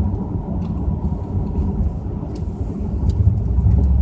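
Pontiac Grand Prix GXP's 5.3-litre LS4 V8 running through a Flowmaster cat-back exhaust while driving, a steady low rumble mixed with road noise heard from inside the car, getting louder about three seconds in.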